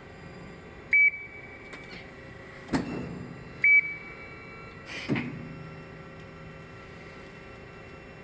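Amada RG-50 CNC press brake running with a steady hum. Its control gives a short electronic beep twice, and each beep is followed a second or two later by a sharp clunk from the machine as it cycles.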